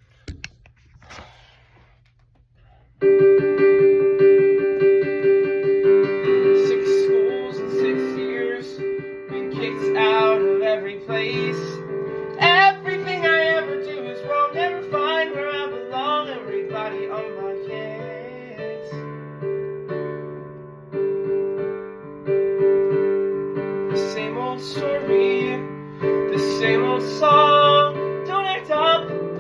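Piano playing a song's introduction, coming in about three seconds in after a short quiet stretch, with chords and a melody line running on.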